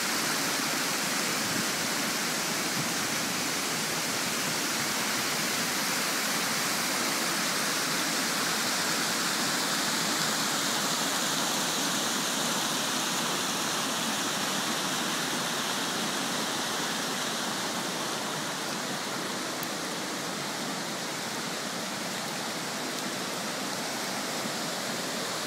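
Hillside stream in flood, rushing and cascading over rocks in a steady roar of white water that eases slightly near the end.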